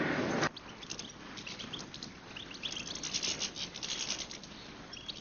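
European goldfinches giving faint, scattered high twittering notes and ticks.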